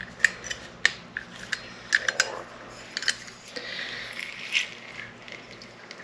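Hinged metal hand-held lemon squeezer being worked: a run of small, sharp metal clicks and clinks as the lemon half is set in and the handles close, then a softer squishing about four seconds in as the lemon is pressed.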